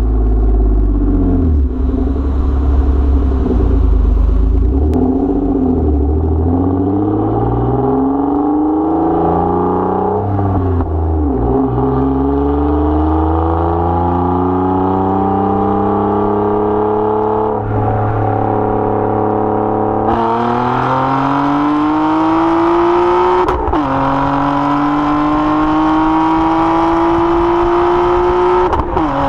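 Nissan Maxima's V6 exhaust heard right at the tailpipe during a full-throttle pull through the gears. The engine note climbs steadily in pitch and drops back at each of three quick manual upshifts in the second half.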